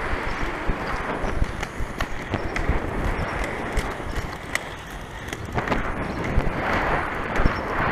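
Inline skate wheels rolling on a concrete sidewalk: a steady rumble with scattered sharp clicks as the wheels cross the slab joints.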